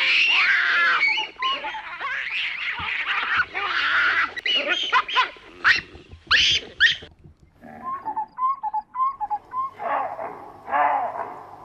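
Baboons calling and screeching, many calls overlapping, with a quick run of short sharp calls about halfway through, after which the calls thin out.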